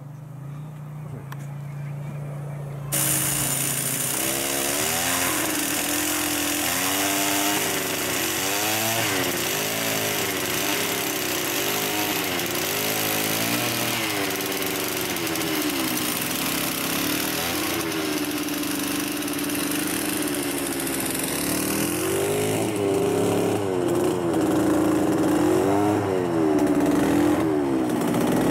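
Small petrol engine of a lure-coursing machine, revved up and down over and over as the lure is pulled ahead of the running dogs. A steady rushing noise sets in suddenly about three seconds in.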